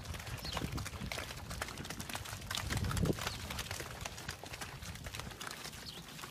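Hooves of Red Angus steers walking and trotting through a muddy pen: an irregular patter of clicks and thuds, with one louder thump about three seconds in.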